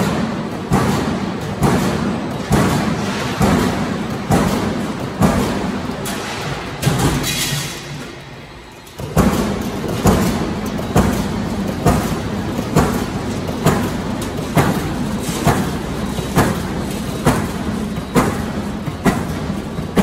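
Press on a sound barrier panel roll forming line striking in a steady rhythm, a little faster than once a second, over a low machine hum. It fades out about eight seconds in, then picks up again.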